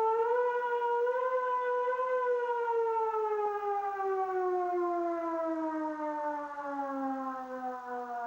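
Civil-defence warning siren sounding one pitched wail that holds briefly, then slowly winds down, falling steadily in pitch from about two seconds in.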